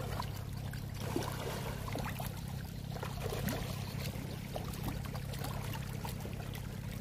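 Faint, scattered small splashes of striped catfish (pangasius) breaking the surface as they snap up floating feed pellets, over a steady low hum.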